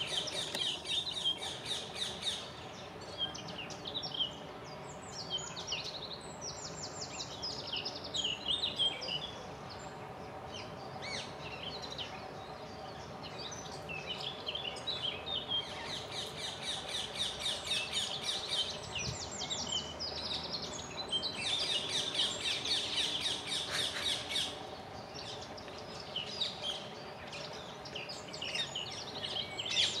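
Small songbirds chirping and twittering in quick runs of high calls, coming in bouts with short gaps, over a steady low background hum.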